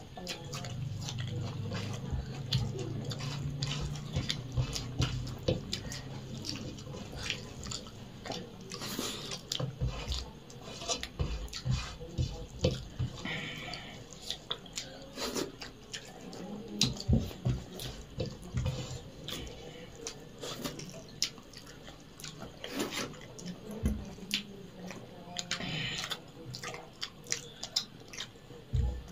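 People eating rice and egg curry with their fingers from steel plates: small wet squelches of food being mixed and picked up, chewing and lip-smacking, with scattered light clicks. A low steady hum in the first few seconds.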